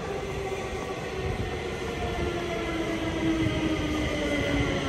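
Stockholm metro train approaching through the rock tunnel into the station: a low rumble that grows slowly louder, with a whine that slowly falls in pitch as the train slows to stop.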